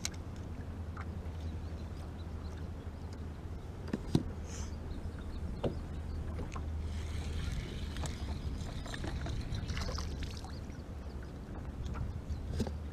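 Quiet sound aboard a small fishing boat on open water: a steady low hum, sharp knocks against the boat about four and five and a half seconds in, and a few seconds of splashy hiss in the middle while a crappie is brought in.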